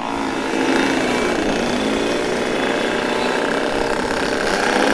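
Two-stroke motorcycle engines revving and accelerating as a group rides off, including the rider's own Yamaha RX-King single-cylinder two-stroke; the engine pitch rises and falls with throttle and gear changes.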